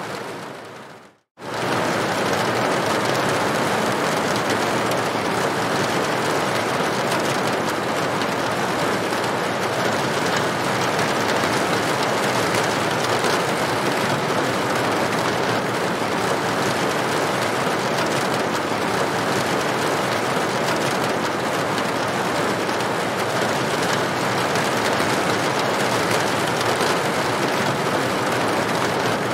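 Steady rain on a tin roof, an even, dense patter. About a second in, it fades and cuts out for a moment, then comes back suddenly at full strength.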